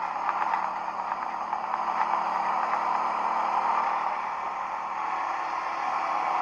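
ATV engine running at a steady pitch while riding, under a loud steady hiss, with a few rattling clicks at the start.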